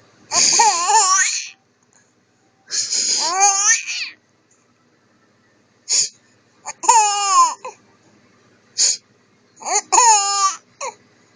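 A man's sharp nasal sniffs, each answered by a small child's high-pitched laughing squeals, over and over with short pauses between.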